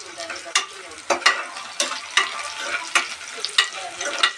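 Steel spoon stirring onions, green chillies and curry leaves frying in oil in an aluminium pressure cooker, the spoon clinking and scraping against the pot about every half second over the frying.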